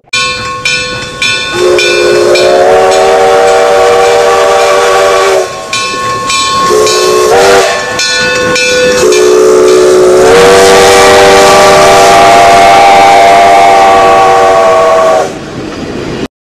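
A multi-chime steam whistle blows a chord over steam hiss. A few short toots come first, then a long blast, a few more short toots, and a second long blast; the pitch slides up soon after each long blast begins.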